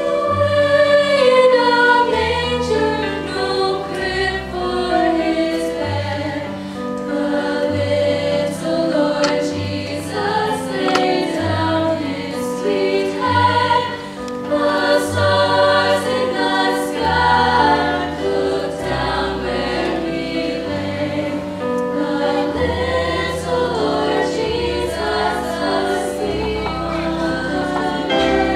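A choir singing a sacred Christmas carol in sustained chords, over instrumental accompaniment with a steadily moving bass line.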